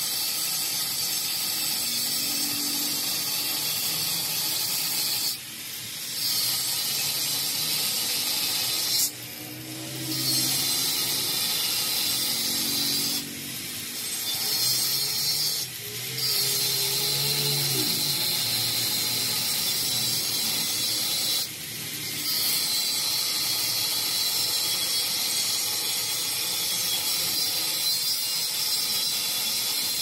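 Handheld electric angle grinder with a cut-off disc cutting through a metal pipe, throwing sparks. It makes a steady high-pitched grinding screech that drops briefly about five times.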